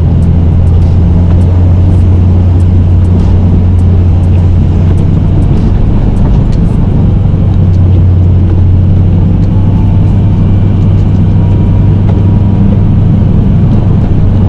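Snow-plow truck's engine running steadily under load while the blade pushes a pile of snow, a constant low drone.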